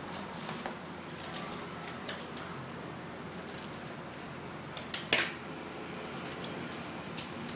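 Foil card-pack wrappers crinkling as a pack of 2012 Bowman baseball cards is taken from the box and opened, with scattered short crackles and one louder sharp crackle about five seconds in.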